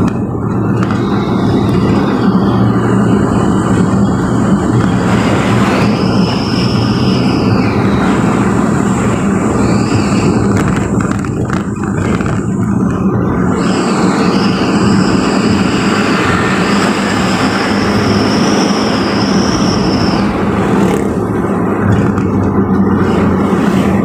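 Engine drone and road noise of a vehicle driving steadily at speed, heard from inside the cab, with a faint high whine that comes and goes.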